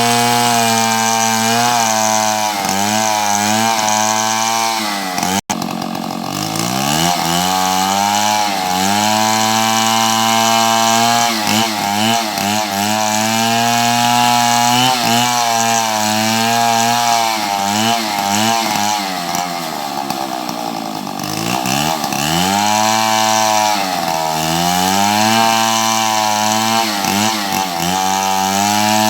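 Chainsaw running at high revs, its engine pitch sagging and climbing back again and again as the chain is loaded in the cut. The sound breaks off for an instant about five seconds in.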